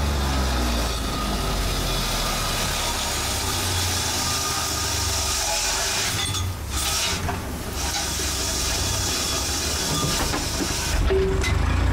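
Small fishing boat's engine running with a steady low drone under an even hiss. The drone thins out midway and comes back louder near the end.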